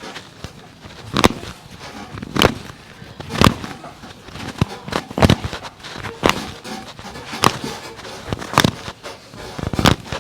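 A run of sharp thumps, roughly one a second with fainter ones in between, from hands working on a patient's back during a chiropractic spinal adjustment.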